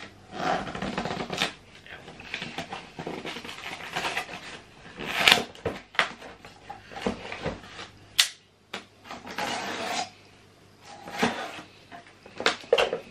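Cardboard shipping box being pried and torn open by hand: irregular rustling, scraping and tearing of the flaps, with a few sharp cracks and knocks, the sharpest about five and eight seconds in.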